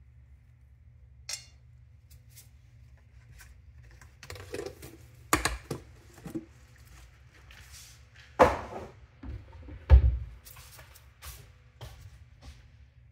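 Kitchen handling noises: scattered knocks and clatter of things being picked up and set down, with a sharp knock about eight seconds in and a deep dull thump, the loudest sound, about ten seconds in.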